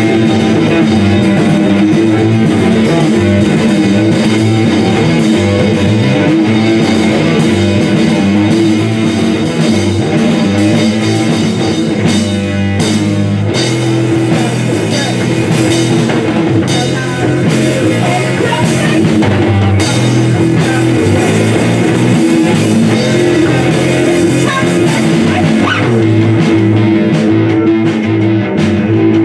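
Rock band playing live: guitars and bass over a drum kit, with a steady beat.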